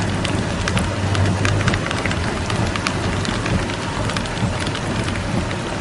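Steady rain falling, with many small sharp drop hits on hard surfaces and a low steady rumble underneath.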